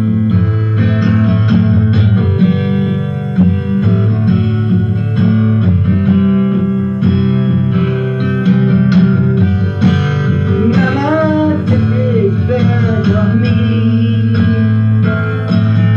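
Acoustic guitar strummed steadily, with a harmonica played from a neck rack over it. About ten seconds in, a run of wavering, bending harmonica notes stands out above the chords.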